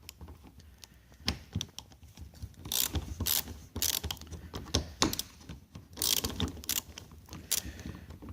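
Socket ratchet clicking in several short runs while loosening the two 12 mm bolts of a hardtop rear latch.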